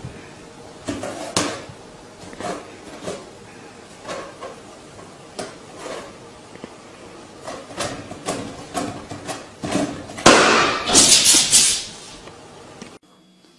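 A cat batting a rubber balloon, a string of light taps and thumps, then the balloon bursts about ten seconds in with a loud pop and a couple of seconds of loud noise.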